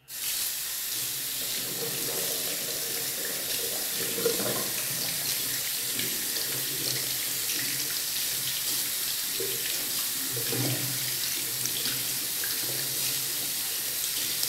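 Tap water running steadily into a bathroom washbasin, starting suddenly as the tap is opened, with hands being rinsed under the stream.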